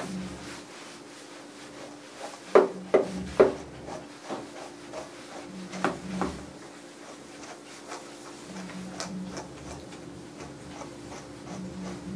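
A grooming brush rubbing in repeated strokes through a small dog's long fluffy coat. A few sharp knocks cut in: three in quick succession about two and a half seconds in, and two more around six seconds.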